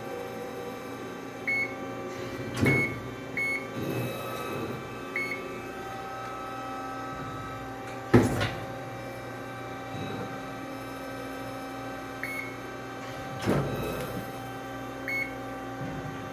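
Amada RG100S hydraulic CNC press brake running with a steady hum. About six short electronic beeps come from its NC9-EX control as settings are entered. A few heavy clunks cut through, the loudest about eight seconds in.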